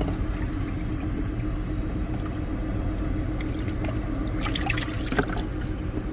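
Water pouring and trickling over a steady low rumble and hum, with a brief patch of splashy crackling about four and a half seconds in.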